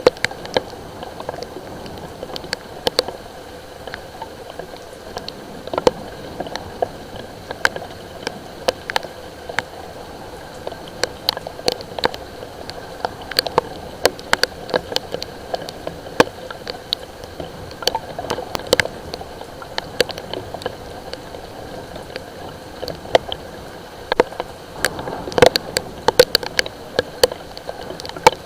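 Light rain: scattered raindrops ticking and pattering irregularly on a hard surface close to the microphone over a steady hiss, with a denser run of louder drops near the end.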